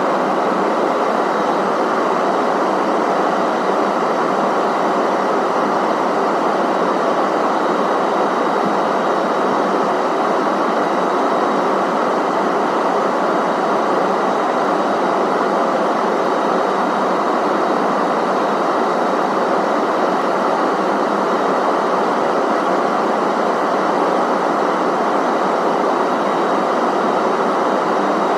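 Steady in-flight cabin noise inside an Airbus A320neo: a constant rush of airflow and engine noise at an even level, with a faint high whine held throughout.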